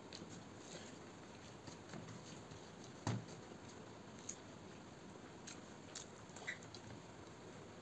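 Eating by hand from a steel plate: fingers mixing and scooping rice on the metal, with faint scattered clicks, a sharper knock about three seconds in, and light ticks and chewing as a handful is eaten near the end.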